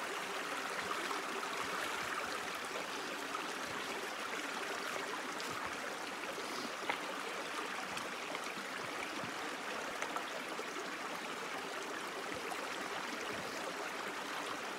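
Small woodland creek running steadily over rocks, an even babbling rush of water, with one brief click about seven seconds in.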